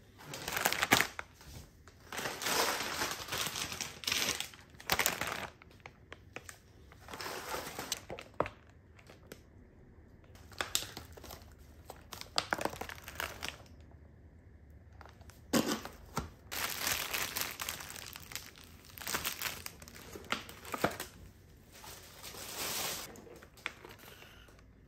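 Plastic food packaging crinkling in irregular bursts with short pauses, as film-wrapped meat packs, bags of mince and a plastic strawberry punnet are handled.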